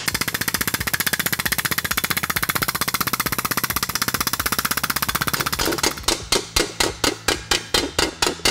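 Very rapid, machine-fast hammering on a welded aluminum motorcycle gas tank, many blows a second, from a planishing hammer flattening the weld seam. About six seconds in it gives way to slower hand blows, about three a second, of a slap hammer striking the aluminum over an egg dolly.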